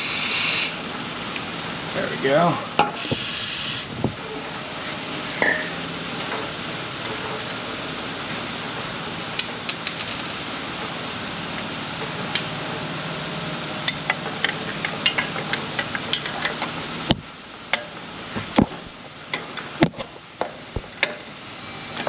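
Aerosol can of penetrating oil sprayed in two short hissing bursts onto rusted exhaust Y-pipe flange bolts, the second about three seconds in. Then a steady soft hiss with scattered small clicks as the foaming penetrant soaks into the rust, fading out a few seconds before the end, when a few louder clicks of tool handling follow.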